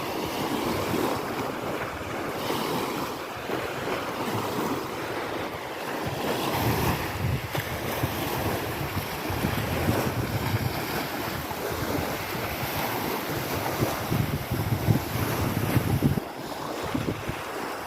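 Wind buffeting the microphone in uneven gusts over small waves washing on a lakeshore.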